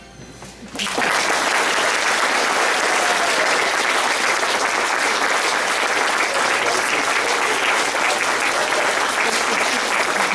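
An audience applauding, breaking out about a second in as the last of the music dies away, and going on steadily.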